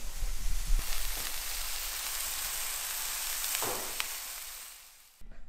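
Meat patties sizzling as they fry in a frying pan on a gas stove: a steady hiss that fades away near the end.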